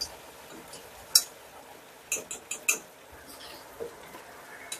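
Sharp clicks and knocks of a whisk against a small nonstick saucepan, and of the pan on a glass-top electric stove, as a sauce is stirred while it thickens. About half a dozen taps: the loudest a little over a second in, then a quick run of four around two seconds in.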